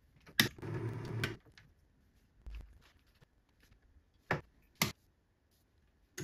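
Small metal lathe's spindle motor run briefly for a thread-cutting pass: a click as it starts, under a second of steady running, and a click as it stops. A few seconds later come two sharp clicks, and the motor starts again at the very end.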